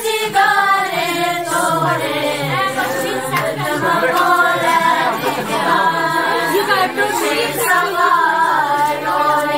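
A group of voices singing together without instruments, several pitched lines overlapping and holding long notes.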